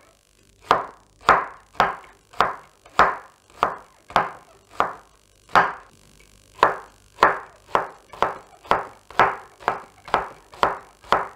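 Chef's knife chopping onion on a wooden cutting board, a sharp knock of the blade on the board with each cut, about two a second. After a short pause midway the cuts come a little faster.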